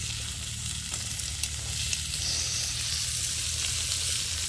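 Whole tilapia sizzling on a gas stove's grill plate: a steady hiss over a low, even hum, with a few faint clicks as metal tongs handle the fish.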